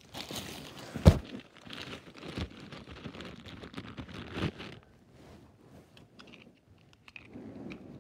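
Plastic zip-lock bag full of small plastic beads being handled: the bag crinkles and rustles and the beads shift inside, with one loud thump about a second in. After about five seconds the handling grows quieter, with a few small clicks.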